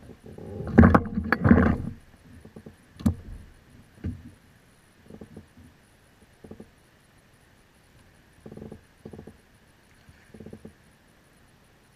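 Knocks, bumps and splashes on a plastic fishing kayak as a hooked spotted seatrout is fought beside the hull: a loud cluster of knocking about a second in, a sharp click near three seconds, then short scattered bumps and splashes.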